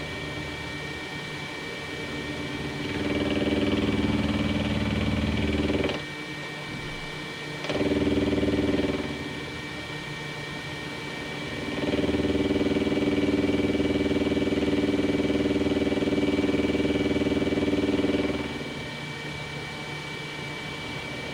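PM30 benchtop milling machine running, with a steady high whine throughout. A louder pitched drone comes in three stretches, the longest about six seconds, as the mill works through finish passes on an aluminium part.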